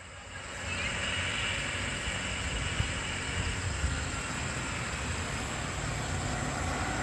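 Highway traffic noise: the rush of a passing vehicle's tyres and engine, swelling about half a second in and then holding steady.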